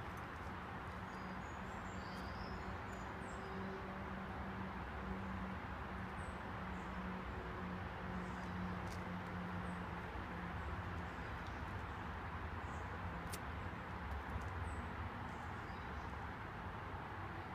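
Steady outdoor background noise with a faint low hum, and scattered faint high bird chirps.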